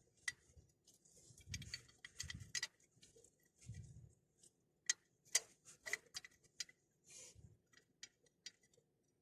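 Irregular light clicks and ticks, some sharp, with a few soft low thuds in between.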